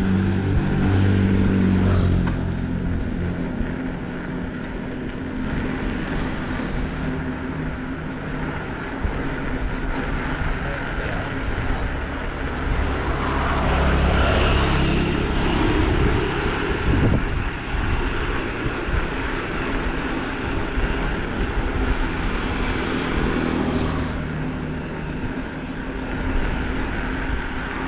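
Bicycle tires rolling over the ground, a steady rumbling road noise that swells for a few seconds about halfway through.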